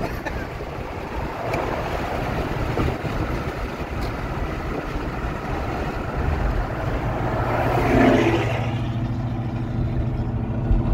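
Road and wind noise inside a moving car, with the loud exhaust of a Ford Mustang's Coyote 5.0 V8 rising in pitch as it passes about eight seconds in, then settling into a steady engine drone.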